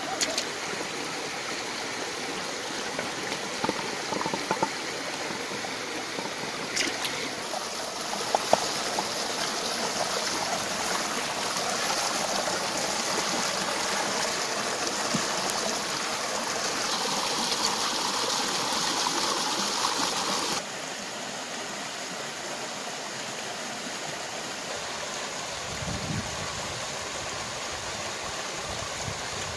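Shallow rocky stream running steadily, with a few light clicks and knocks in the first several seconds. The water sound is fuller from about a quarter of the way in and changes abruptly about two-thirds of the way through.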